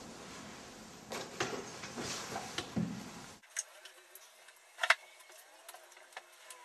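Rustling and handling noise over a steady hiss, which gives way abruptly, at an edit about three and a half seconds in, to a quieter room where a few scattered sharp clicks sound. One click, just before the five-second mark, is much louder than the rest.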